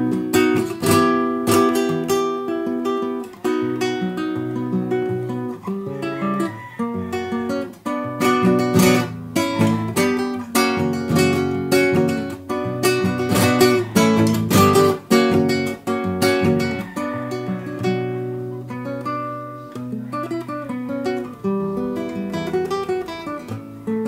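Acoustic guitar music: chords strummed in quick strokes with picked notes between them, changing chords throughout.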